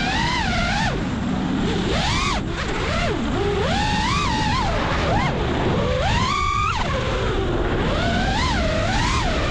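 FPV freestyle quadcopter's brushless motors whining, the pitch swinging up and down constantly with the throttle, climbing sharply about six seconds in, over rushing wind noise.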